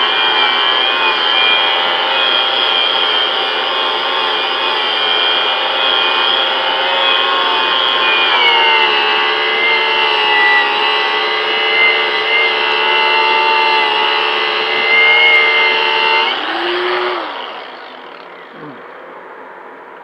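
Harbor Freight angle grinder with a buffing wheel running steadily as it polishes an aluminum wheel rim, its whine dropping slightly in pitch about eight seconds in. Near the end it is switched off and winds down.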